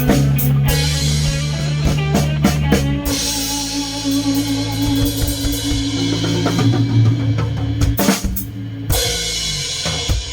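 Rock band playing the instrumental ending of a song: a drum kit with cymbal crashes over held guitar and bass chords. There are two big hits near the end.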